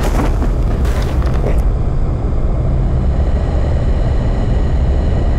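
Loud, deep rumbling drone, a designed horror-film ambience, with a few knocks in the first second or two. From about two seconds in a steady electric hum runs over it.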